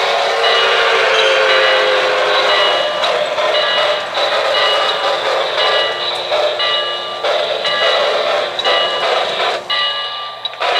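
Electronic sound system of a Lionel O-gauge Hiawatha steam locomotive model standing still: a steady steam hiss with short bell-like rings repeating about every 0.7 seconds. A held whistle tone ends a little under three seconds in.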